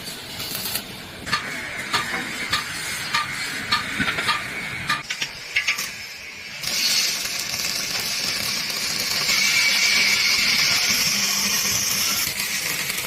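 Metalworking: a run of sharp strikes on metal, about two a second, each ringing briefly. About halfway through they give way to a steady high hiss, which grows louder a little later.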